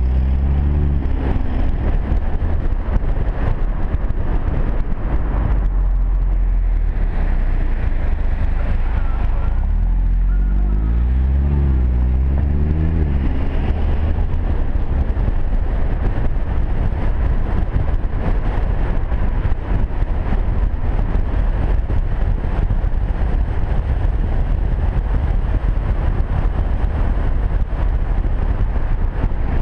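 Audi TT-S's turbocharged four-cylinder engine and exhaust pulling through the gears. Its pitch climbs and drops at the shifts, twice: at the start and again partway through. Heard from a camera on the car's flank, so wind and road noise dominate, and from about halfway on it is mostly a steady rushing noise at speed.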